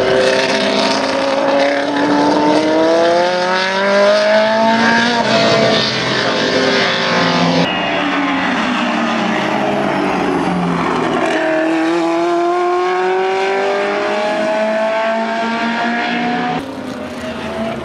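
Mirage M12's Cosworth DFL V8 race engine at full throttle, its pitch climbing again and again through the gears with upshifts in between. The sound changes abruptly where the footage cuts, about eight seconds in and near the end.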